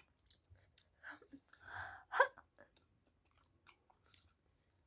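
Close-up chewing of spicy instant ramen noodles and kimchi: wet mouth clicks and smacks, with a louder smack about two seconds in.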